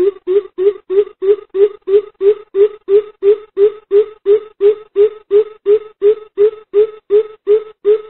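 Greater coucal giving its flock-gathering call: a long, even series of deep hoots, about three a second, all on the same pitch.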